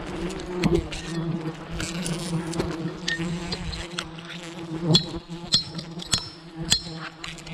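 Wild honeybees buzzing in a swarm around their disturbed nest, a steady droning hum. Several sharp clicks or snaps stand out over it, the loudest about five seconds in.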